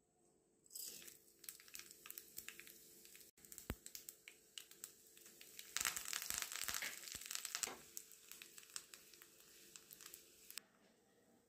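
Mustard seeds, urad dal and dried red chillies spluttering in hot oil in a small pan: fast, irregular popping and crackling. About six seconds in, curry leaves hit the oil and a louder sizzle takes over for a couple of seconds. The popping dies down near the end.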